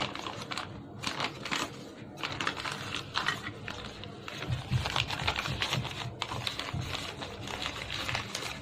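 Newspaper crinkling and rustling as it is folded and wrapped around a paan, in a run of irregular crackles.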